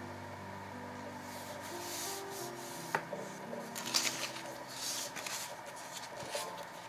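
Paper rustling and crinkling as sheets of thin translucent sticker paper are handled and flipped. The loudest rustles come about two, four and five seconds in, with a single sharp click near three seconds, over soft background music.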